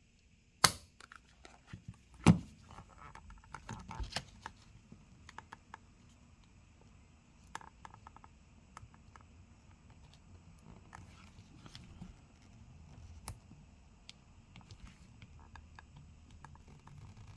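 Small hand tools working on a phone: two sharp clicks in the first few seconds, then scattered faint ticks, taps and light scraping as the phone is pried open with a suction cup and plastic pick.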